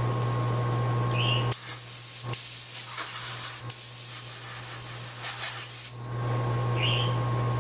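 Steady hiss over a low electrical hum and a faint thin tone. For a few seconds in the middle the hum and tone drop out and the hiss turns brighter and sharper.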